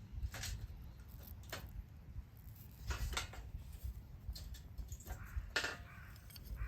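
Intermittent rustling and scraping handling noises, a few sharper than the rest, over a steady low rumble.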